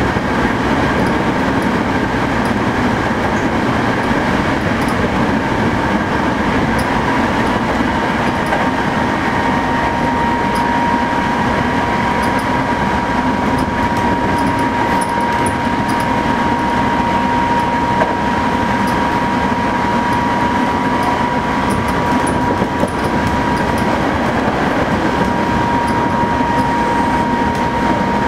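Hankyu 8000 series electric train, with Toshiba GTO-inverter drive, running steadily as a limited express. Continuous rolling noise of wheels on rail carries a steady high whine throughout.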